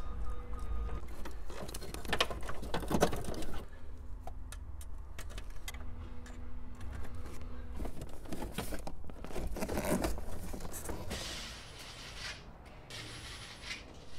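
Plastic harness connectors and cables being handled and clicked into place behind a car dash, with scattered clicks and rustling. Near the end come two short runs of a Ridgid cordless drill driving the radio's mounting screws.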